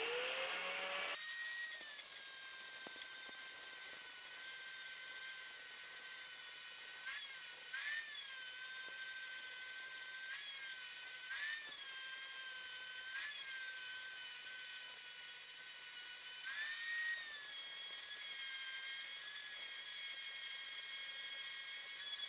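A power tool running steadily with a high-pitched whine. It speeds up in the first second, then its pitch jumps up briefly every few seconds.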